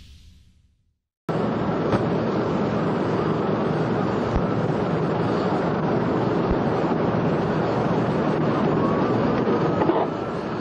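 Jet airliner engines running at high power as the aircraft climbs away, a steady rushing noise that starts suddenly about a second in.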